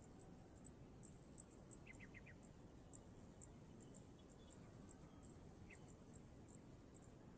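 Faint insect ambience: a steady high hiss with many quick ticks. A small bird gives four quick high chirps about two seconds in and one more near six seconds.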